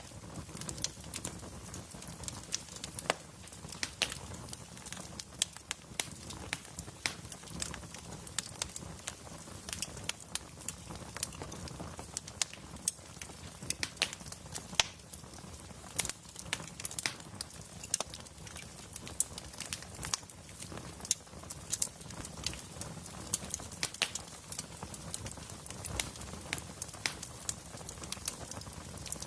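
Wood fire burning in a fireplace, crackling with frequent sharp, irregular pops and snaps over a low steady rumble.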